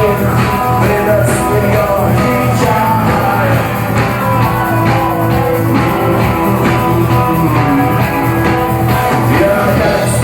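Rock song played by a band with electric guitar and drums, and a sung vocal line.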